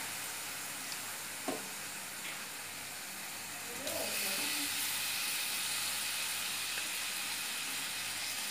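Raw mutton pieces sizzling in hot oil and fried onion-mint masala in a kadai, a steady hiss that grows a little louder about four seconds in as the meat goes into the pan.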